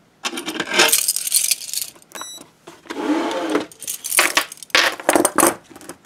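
Steel chain and cuffs of a pair of American Handcuff Co. leg irons jangling and clanking as they are handled, lifted off the scale and set down in a series of rattles. A short high beep sounds about two seconds in.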